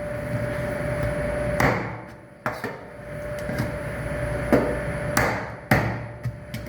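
A knife chopping through catfish onto a wooden cutting board: a handful of sharp knocks at irregular intervals, over a steady hum.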